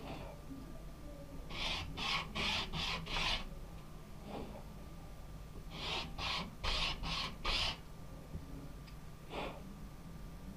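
A small wooden piece sanded by hand on a sheet of sandpaper: short back-and-forth scratchy rasps, in two runs of about five strokes each with a pause between, and a stray stroke or two.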